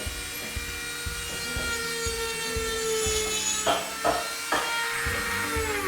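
Power saw running and cutting wood, its motor winding down near the end, with background music underneath.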